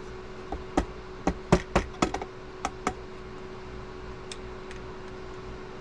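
A quick run of sharp clicks and taps, about ten in two and a half seconds, then two faint ones, as the plastic parts and packaging of a replacement phone screen kit are handled on a work surface.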